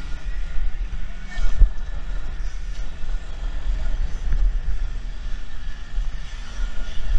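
Wind buffeting the microphone of a camera riding on a custom 5 kW electric motocross bike over a bumpy dirt track, with one hard knock about one and a half seconds in.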